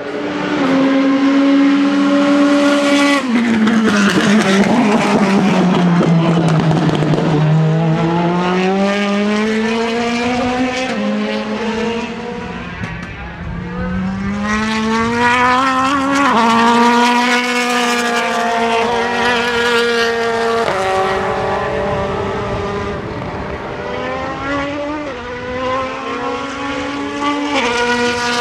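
Mercedes-AMG C63 DTM race car's 4.0-litre V8 running hard on track. The revs drop steeply about three seconds in and fall for several seconds, then climb again, with sudden shifts in pitch as it changes gear several times.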